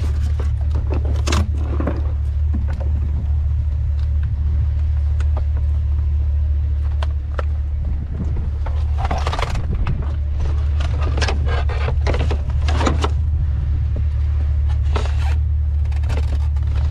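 Vehicle engine idling with a steady low hum, with scattered clunks, scrapes and rattles of curbside junk being handled.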